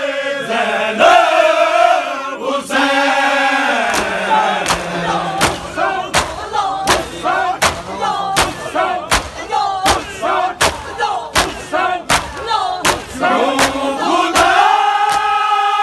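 Men's chorus chanting a noha, then from about four seconds in a crowd of mourners slapping their bare chests in unison (matam), sharp beats about every 0.7 seconds with shouted chanting between. The sustained sung chant returns near the end.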